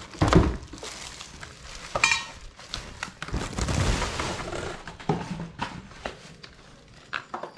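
Parts of a new electric fan being handled during assembly: scattered knocks and clicks, with a stretch of rustling about three to four seconds in.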